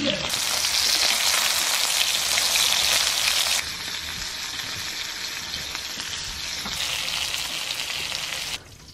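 Steak sizzling as it fries, a dense steady hiss that jumps abruptly in level and brightness a few times, as between edited shots, and fades just before the end.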